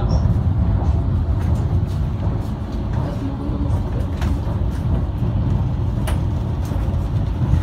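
Tram running along its rails, a steady low rumble of motors and wheels heard from inside the car, with a couple of short sharp clicks about four and six seconds in.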